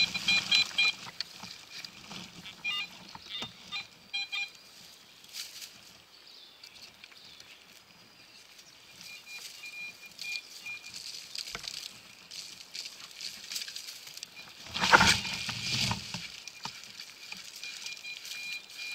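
Hands digging and scraping through dry fallen leaves and soil, with a louder rustle about fifteen seconds in. Short electronic beeps from the metal detector come in the first few seconds, and a thin steady tone sounds now and then.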